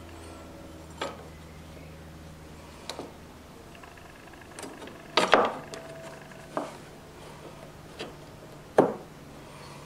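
Light metal clicks and clinks as a scooter's rear brake caliper is worked back over the brake disc with its pads held apart, a cluster of clinks about five seconds in and a sharper knock near the end. A steady low hum lies underneath.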